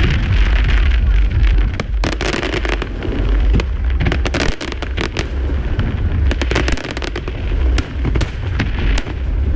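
Fireworks display: heavy low booming of shell bursts with many sharp cracks and crackling, thickest from about two seconds in until near the end.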